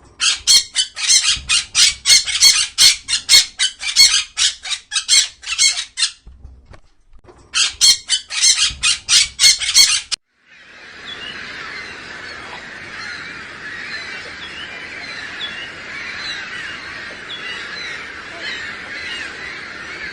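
Rapid, harsh, high-pitched calls repeated four or five times a second in two bouts, with a short pause between them. About ten seconds in, this gives way to a steady, dense chorus of many birds calling at once.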